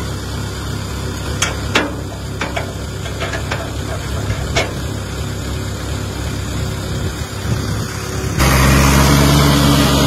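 Tractor engine idling, with several sharp metallic clanks as the trailer's drawbar is coupled to the tractor hitch. About eight seconds in the engine is throttled up and runs much louder as the tractor starts pulling the trailer.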